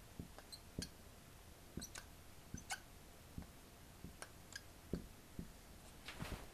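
Marker tip tapping and squeaking faintly on a glass writing board as letters are written: irregular light taps, some with short high squeaks, and a brief rustle near the end.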